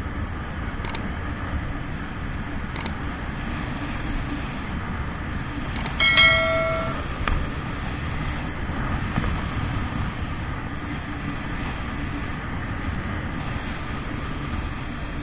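Steady rumble of a motorcycle ride, with wind buffeting the rider's microphone. About six seconds in, a horn beeps once briefly.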